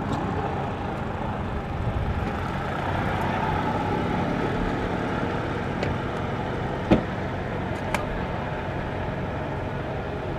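Steady engine rumble of idling cars. About seven seconds in there is one sharp thump, the loudest sound, and a smaller click follows a second later.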